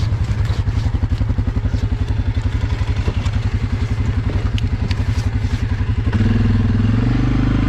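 ATV's single-cylinder engine idling with an even, quick pulse. About six seconds in the throttle opens and it runs louder. A few light clicks and ticks are heard over it.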